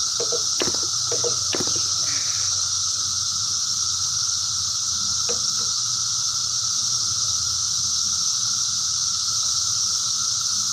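Steady high-pitched hissing drone, with a few short clicks in the first second and a half.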